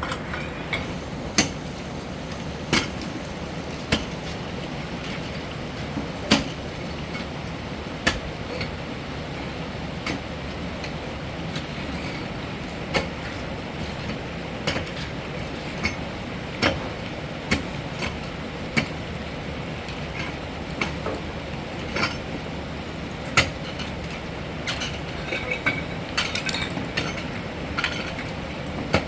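Irregular sharp knocks and clinks, one every second or two, over a steady low hum.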